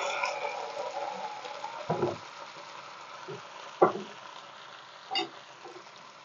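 Red wine sizzling and hissing in a hot frying pan of browned vegetables and lamb shank as it deglazes, the sizzle dying down steadily, with a few short clicks along the way.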